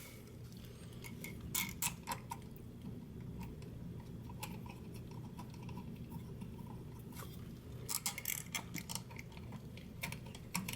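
Scattered light clicks and small metallic taps of small screws and electrical switch hardware being handled, in two short clusters, over a low steady hum.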